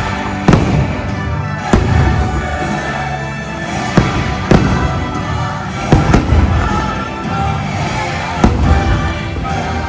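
Fireworks display: about seven sharp bangs of shells bursting, irregularly spaced, over loud show music.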